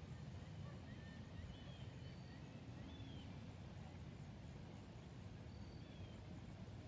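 Bald eagle giving faint, high-pitched chirping calls, a few short falling notes from about one to three seconds in and again near the end, over a steady low rumble.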